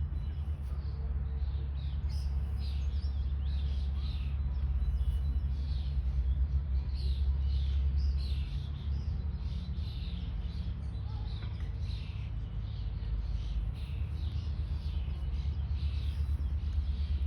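Songbirds singing in a spring park: many short, quick chirps that slide downward in pitch, repeating throughout. A steady low rumble runs underneath.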